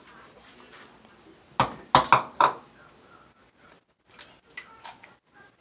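Kitchenware clattering: a quick run of loud, sharp knocks between about one and a half and two and a half seconds in, then a few lighter clinks with a brief ring near the end.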